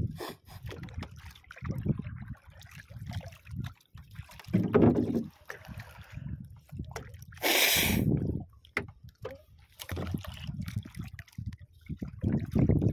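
Water lapping and sloshing irregularly against the hull and outrigger of a small wooden outrigger boat, with one louder rushing burst lasting about a second past the middle.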